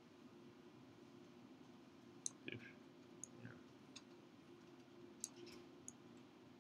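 A handful of faint computer mouse clicks, scattered from about two seconds in, over a low steady room hum.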